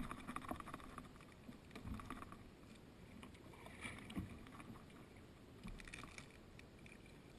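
Faint splashes and drips of a kayak paddle dipping into the river, a stroke about every two seconds.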